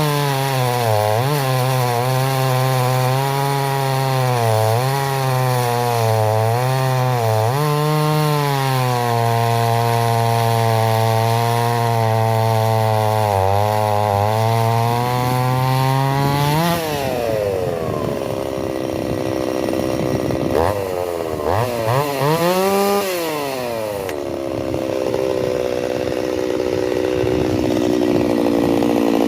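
Stihl 028 AV Super two-stroke chainsaw cutting frozen beech at high revs, the engine pitch dipping and recovering as the chain loads up in the wood. About 17 seconds in it drops off to a lower speed, revs up once more briefly, then settles into steady lower running.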